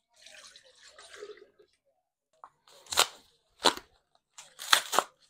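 Cream pouring softly into a glass blender jar for about a second and a half. After a pause come several sharp clacks and crinkles as packages are handled at an open refrigerator, the loudest near the end.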